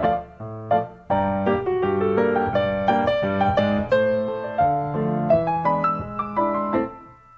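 Solo ragtime piano music, with brief breaks in the playing about a second in and again near the end.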